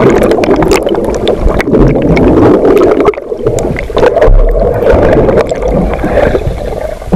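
Seawater churning and bubbling around a camera held underwater after a fall from a paddleboard: a loud, muffled rushing with many small clicks and pops from the bubbles.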